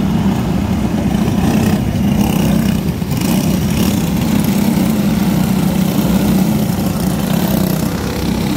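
Engines of a pack of racing go-karts running together as they pass, a steady, continuous drone.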